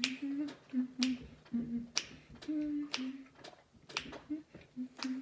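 Finger snaps keeping a steady beat, about one a second, six in all, over a person humming a tune softly with closed lips.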